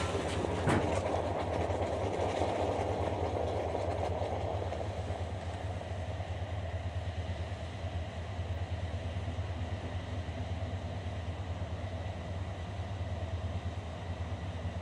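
Drano crystals (sodium hydroxide with aluminum) reacting violently in just-poured boiling water: a steady fizzing, boiling hiss, loudest in the first few seconds and then slowly tapering off, over a steady low hum. A single light knock about a second in.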